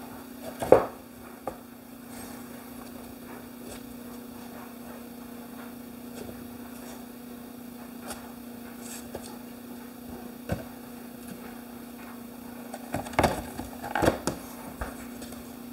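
Laminate flooring planks being set down and pressed into place on a plywood table top: a sharp knock about a second in, then a long lull with a steady low hum, and a cluster of knocks and taps near the end as a plank is pushed home against its neighbour.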